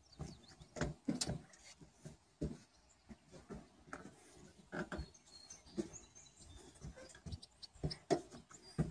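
Irregular rustling thuds of someone walking through tall grass, with a few faint bird chirps.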